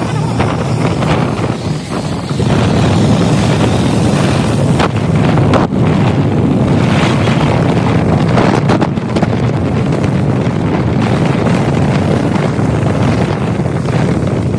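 Steady road and wind noise inside a moving car, with tyres hissing on a wet road and wind buffeting the microphone, plus a few brief knocks in the middle.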